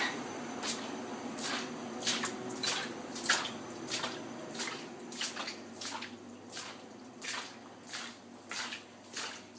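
Water dripping and splashing in irregular drops, about one or two a second.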